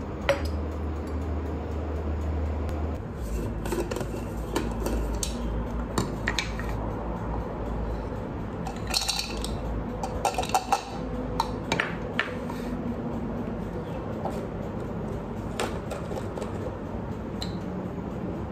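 Kitchenware handling: a glass and plastic containers set down on a counter with light clinks and taps, and frozen blueberries dropped one by one into a clear plastic blender cup, a quick run of small knocks about halfway through.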